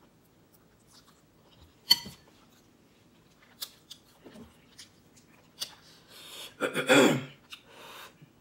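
Eating sounds: a metal fork clinking sharply on a glass bowl about two seconds in, followed by a few lighter clicks. Near the end there is a louder, breathy, throaty noise from the eater, typical of a cough brought on by spicy noodles.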